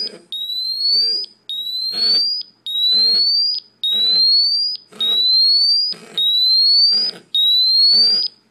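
BW GasAlert MicroClip XT gas detector sounding its alarm, set off by hydrogen sulfide from a hard-boiled egg: a loud, high beep rising in pitch over about a second, repeating about once a second, with a short buzz in each gap.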